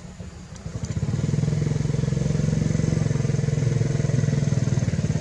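A small engine running with a fast, even low pulsing, coming in about a second in and holding steady.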